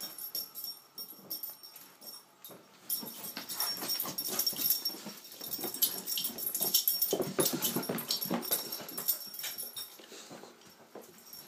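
A border collie and a boxer playing: a busy run of short, irregular dog sounds, loudest in the middle and dying down near the end.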